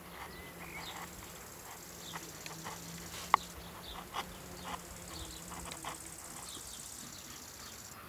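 A wood chisel scraping and shaving a carving in short, uneven strokes, with one sharp tap of the blade a little over three seconds in, over a faint steady hum.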